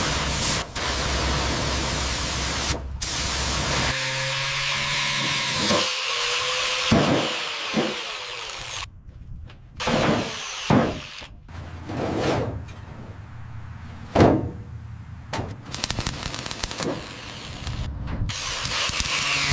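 Workshop tool noise in short, abruptly cut clips: a power tool running with a steady rush, then scraping and rubbing strokes with brief squeaks and a few sharp knocks.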